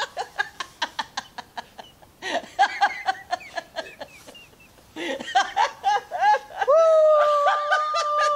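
Men laughing hard in fits of quick repeated bursts, with a long held shout near the end.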